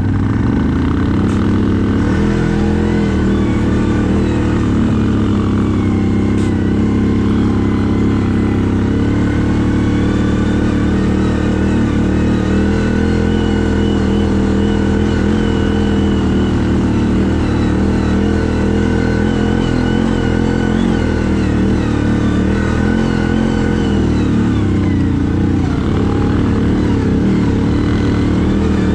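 CFMoto 1000 ATV's engine running steadily under way, its pitch rising and falling a little with the throttle.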